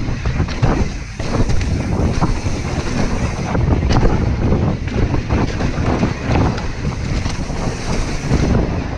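Mountain bike descending a dirt trail at speed: wind buffeting the microphone and tyres rumbling over the ground, with frequent short knocks and rattles from the bike over bumps.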